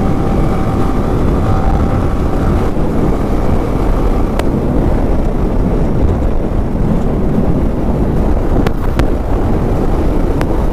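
Wind rushing over the microphone as a Yamaha R15 v2, a 150 cc single-cylinder motorcycle with an Akrapovic exhaust, is ridden along; a steady engine note shows through for the first few seconds, then the wind noise covers it.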